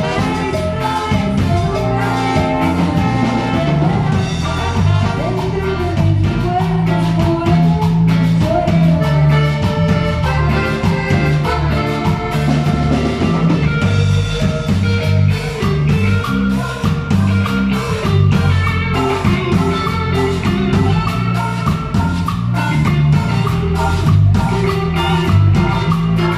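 Cumbia band music: drums and percussion keep a steady dance beat under a repeating bass line and a bright melody.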